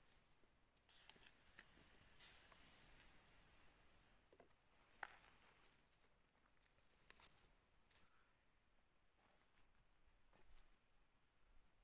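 Faint insects chirring, a steady high-pitched buzz throughout, with some rustling in the first few seconds and a few sharp clicks near the middle.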